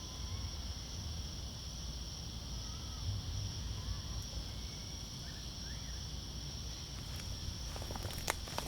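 Steady high-pitched insect chorus holding two even tones throughout, with a few faint short bird chirps and low wind rumble; a couple of sharp clicks near the end.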